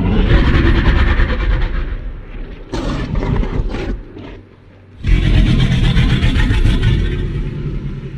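Giganotosaurus creature sound effect: a long, deep roar, then a short dip and a second long, deep roar starting about five seconds in.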